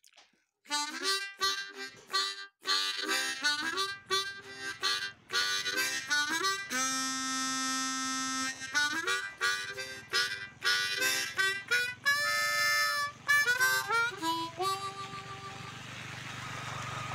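Harmonica music, a run of short bent notes with a long held chord in the middle, fading out near the end.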